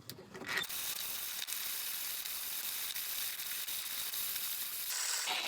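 Vintage 1950s-60s German manual conical burr coffee grinder cranked by hand, grinding coffee beans on its finest setting with the burrs just touching: a steady, gritty hiss of beans being crushed between the burrs.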